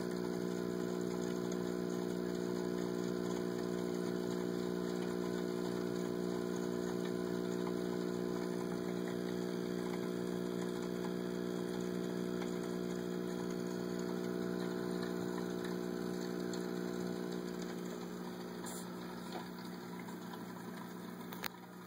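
Aquarium pump running with a steady electrical hum. It gets a little quieter in the last few seconds, and there is a single click near the end.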